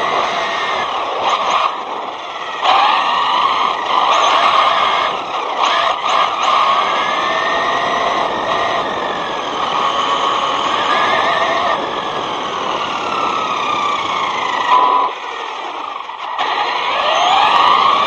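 Brushless electric motor of a ZD Racing Pirates 2 RC truck whining, its pitch rising and falling again and again with the throttle, over a steady rushing noise. The sound drops for a moment about three-quarters of the way through, then picks up again.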